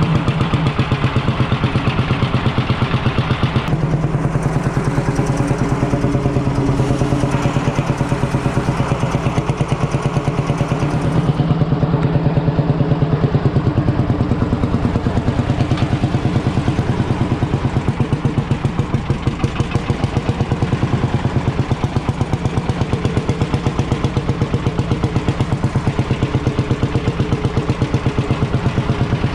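Ursus C45 tractor's single-cylinder two-stroke hot-bulb engine running with a steady, rapid thumping beat, heard from the driver's seat; it swells a little louder about twelve seconds in.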